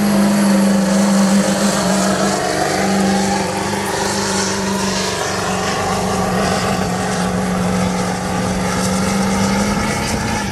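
Ford Powerstroke turbodiesel V8 running hard at full load through straight exhaust stacks while dragging a weight-transfer pulling sled: a loud, steady drone that drops away near the end.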